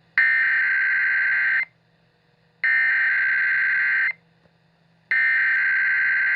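Emergency Alert System SAME header: three identical bursts of warbling digital data tone, each about a second and a half long with a one-second gap between them, announcing a new alert. A faint low hum runs underneath.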